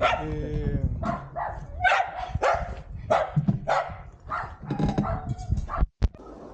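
A dog barking repeatedly, about two barks a second, mixed with a man's voice; it cuts off abruptly near the end.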